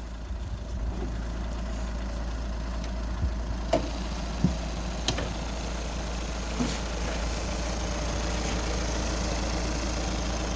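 Skoda Yeti's engine idling steadily, with a few short knocks and clicks about three to six seconds in.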